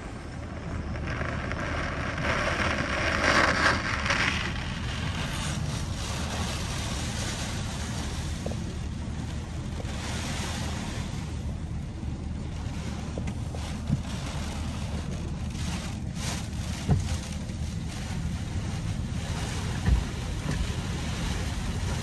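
Wind-driven rain pelting a vehicle's windows and roof, heard from inside the vehicle as a steady rushing hiss. It swells with gusts about three seconds in and again around ten seconds, and a few sharp knocks hit later on.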